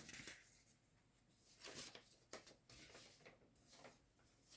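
Faint, brief rustles and light scrapes of paper and cardboard as a model kit box and its contents are handled, with near silence between them.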